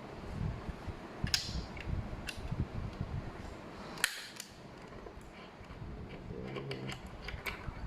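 Allen key working a small screw out of the back of a Jack E4S sewing machine head: scattered sharp metal clicks and creaks of tool and screw, a few seconds apart.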